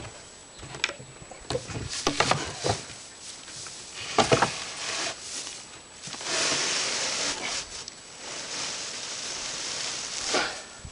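Loose hay being packed down in a homemade box hay baler: a series of knocks from the plunger and box, then a stretch of dry rustling of the compressed hay about six seconds in, and another knock near the end.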